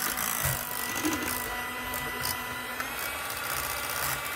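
Electric hand mixer motor starts abruptly and runs steadily, its beaters whipping boiled potatoes and sour cream into creamed potatoes in a stainless steel saucepan, with a few brief ticks along the way.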